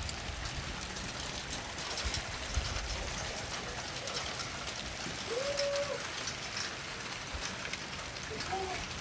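Steady patter of falling wet precipitation, with many small ticks of drops or flakes landing. A bird gives one short arched call about five seconds in, and a fainter one near the end.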